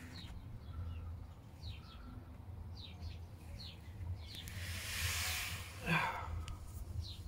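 Birds chirping: a run of short, high chirps every half-second or so over a steady low hum. A brief hiss lasting about a second comes near the middle.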